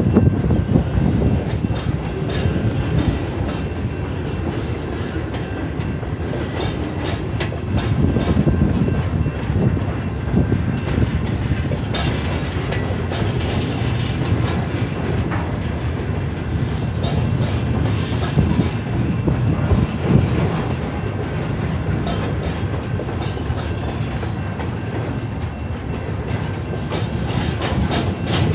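Freight train of covered hoppers and centerbeam flatcars rolling through a road crossing: a steady rumble of wheels on rail, with wheels clicking over the rail joints.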